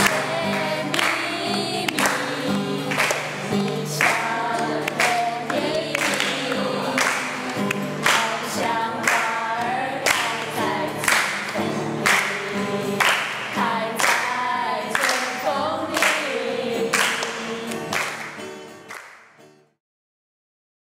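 Group singing to an acoustic guitar, with hand claps on the beat about once a second. It fades out near the end.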